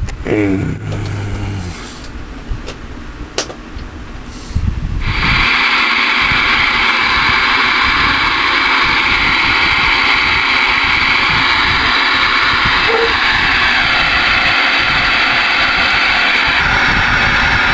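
Ranger RCI-2980WX ten-meter radio's speaker hissing steadily with receiver static. The hiss comes on suddenly about five seconds in, after a couple of sharp clicks.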